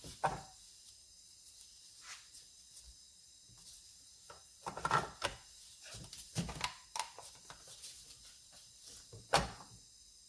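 Scattered clicks and knocks of plastic and metal parts being handled as the chain-brake mechanism of a Husqvarna 455 chainsaw is fitted and cocked back into place by hand, with the sharpest knock near the end.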